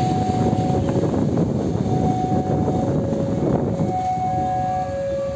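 Railway level-crossing warning alarm: an electronic two-tone signal alternating between a higher and a lower tone roughly once a second, sounding while the crossing barriers are down. Under it runs a steady low rumble that eases near the end.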